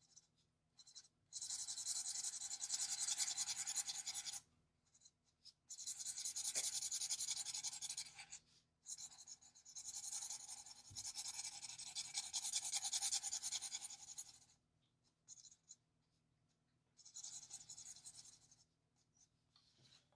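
Alcohol marker nib scratching across paper in long back-and-forth colouring strokes, in four stretches with short pauses between.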